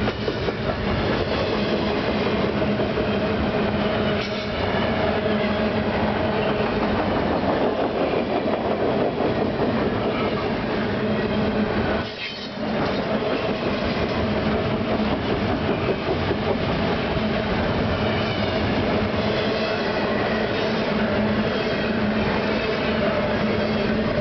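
Double-stack intermodal well cars rolling past close by: a steady rumble and clatter of steel wheels on rail, with a steady hum running under it. It drops off briefly about halfway through, then picks up again.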